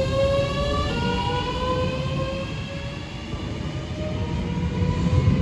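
Southeastern Class 377 Electrostar electric multiple unit accelerating away. Its traction motors whine, rising in pitch with a jump up about a second in, over the rumble of wheels on the track.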